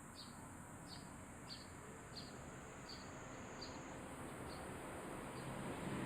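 Eurasian tree sparrow chirping over and over, about one short chirp every two-thirds of a second, the chirps fading out a little after the middle. Behind it runs the steady high sizzling drone of large brown cicadas (aburazemi).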